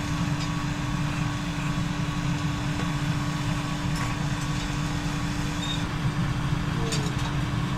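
Home-made metal-melting furnace running steadily with its air blower, melting brass and bronze scrap: a constant hum over a deep, even rushing noise. A few faint clicks come near the end.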